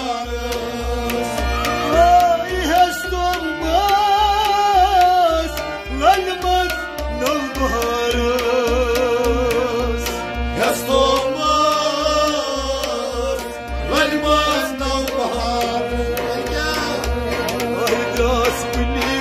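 Man singing a Kashmiri Sufi kalam in an ornamented, wavering melody over a steady drum beat.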